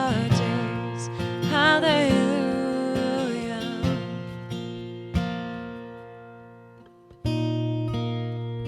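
Acoustic guitar strumming slow chords in a worship song, with a voice holding a wavering note in the first few seconds. A chord rings out and fades almost to silence, then a fresh strum comes in about seven seconds in.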